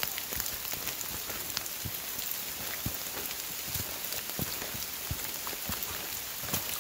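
Steady rain falling on the forest, a constant hiss broken by many irregular, sharp drop taps.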